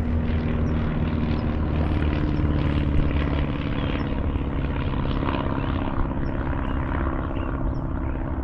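Aircraft flying overhead, its engine giving a steady droning hum with a low, even pitch.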